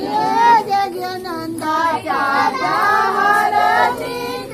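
A group of women singing a wedding song together in sung phrases, with no instruments.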